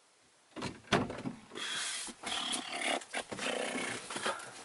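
Two sharp knocks about half a second apart, then irregular rustling and scraping: handling noise from someone moving around and working inside a truck cab.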